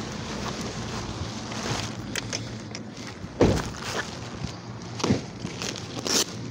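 Handling noises as a person climbs out of a parked car and moves about beside it: scattered knocks and rustles, with the loudest thud about three and a half seconds in, over a steady low hum.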